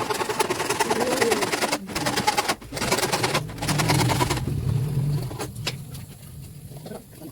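Screws being driven in to fasten an electrical switchboard to the wall, with a small powered tool running in several bursts split by short pauses, then dying away in the last couple of seconds.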